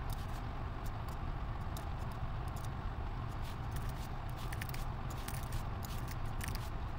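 Computer keyboard typing and mouse clicks, an irregular scatter of small clicks, over a steady low background hum.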